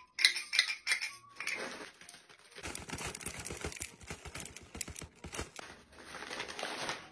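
A few sharp plastic clicks from a hand-held sunflower seed sheller being handled, then sunflower seeds rattling as they are poured from the bag into its plastic chamber.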